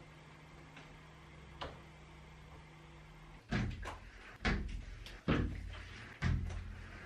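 A low steady hum with a couple of faint clicks, which stops about halfway; then a series of four heavy knocks and thuds about a second apart, of the kind made by doors or cupboards being handled.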